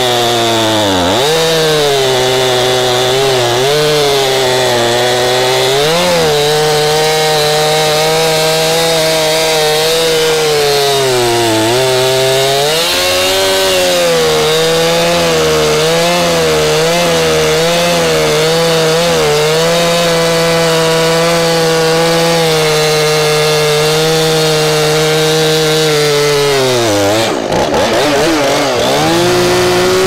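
Stihl MS 271 Farm Boss two-stroke chainsaw running at high revs, cutting through a felled tree trunk. Its engine pitch sags and recovers now and then under load, with a deeper drop and recovery near the end.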